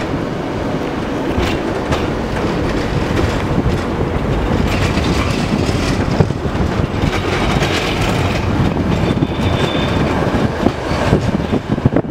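71-623.02 tram running along its track: a steady rumble of wheels on the rails, with scattered short knocks and clicks.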